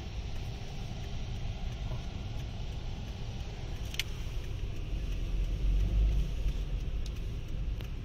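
Car running along a narrow road, heard from inside the cabin: a steady low engine and road rumble that swells for a couple of seconds past the middle, with a single sharp click about halfway through.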